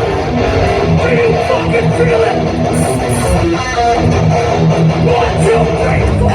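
Hardcore band playing live at full volume: distorted electric guitars, bass and drums in a dense, driving wall of sound, with bright cymbal hits about three seconds in.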